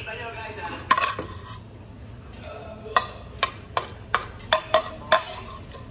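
Metal spoon clinking and scraping against a plate while eating: a sharp clink about a second in, then a quick run of about seven clinks as food is scooped up near the end.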